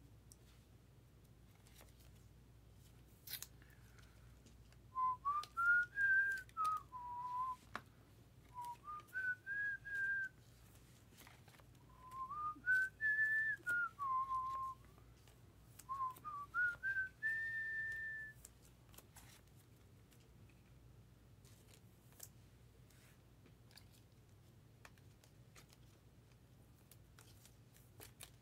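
A person whistling a simple tune in four phrases, each climbing in steps and dropping back, starting about five seconds in and stopping about eighteen seconds in. Faint clicks and rustles of trading cards and plastic sleeves being handled are scattered throughout.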